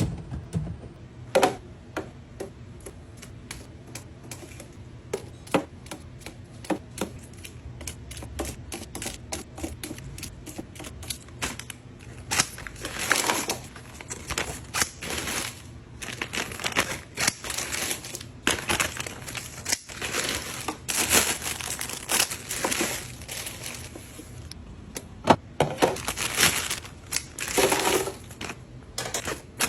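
Objects being handled: a run of sharp clicks and taps, with crinkling, rustling bursts that grow more frequent in the second half, over a low steady hum.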